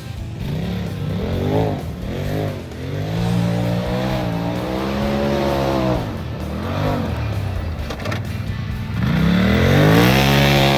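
Sport side-by-side UTV's engine revving up and easing off again and again as the machine slides around the barrels, with the loudest, highest rev near the end before the sound cuts off abruptly.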